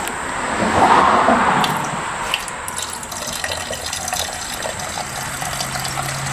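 Distilled water being poured into a Ford F-150 Lightning's intercooler coolant system, splashing loudest about a second in and then trickling and gurgling. A low steady hum starts about five seconds in.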